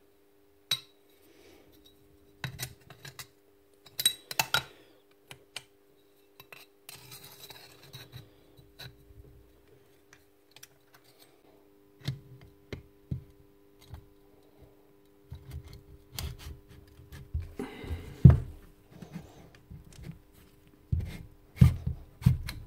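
Metal parts of a magnetic drill being handled and fitted on a workbench: scattered clinks and knocks, a stretch of scraping about a third of the way in, and a cluster of louder knocks near the end. A faint steady hum runs underneath.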